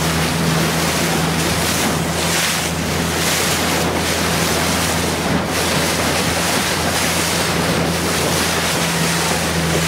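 A motorboat's engine running at a steady pitch, with wind buffeting the microphone and choppy water washing past the hull; the wind swells a couple of seconds in.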